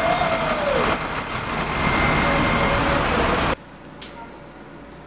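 Loud street traffic noise with a brief squeal that rises slightly and then falls near the start. It cuts off abruptly about three and a half seconds in, leaving quiet room tone.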